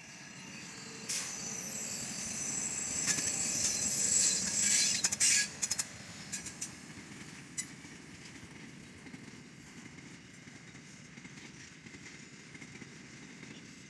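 Freight train hauled by diesel locomotives passing close by. The sound builds to its loudest about four to five seconds in, with sharp clicks of wheels over the rail joints and a high hiss. It then settles into a steadier rumble and clatter as empty grain hopper wagons roll past.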